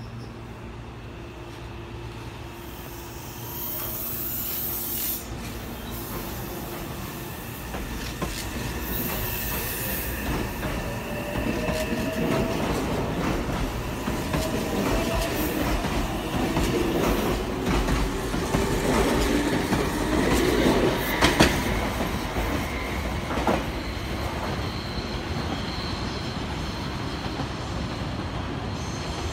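Meitetsu 3300 series electric train pulling out of the station and gathering speed. Its motor whine rises in pitch and the sound grows louder as the cars pass close by, with wheel noise and a few sharp knocks.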